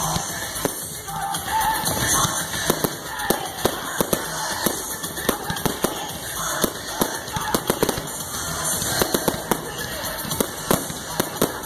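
Aerial fireworks shells bursting overhead in rapid, irregular succession: many sharp bangs and crackles, several a second, over a continuous rumble.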